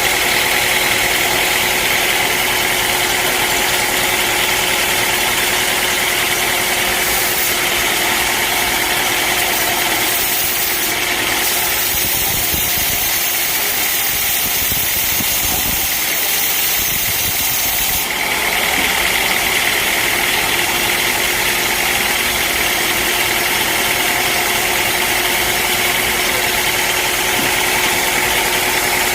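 Sawmill machinery running steadily, a continuous mechanical drone with a high whine; for several seconds near the middle the sound turns hissier before settling back.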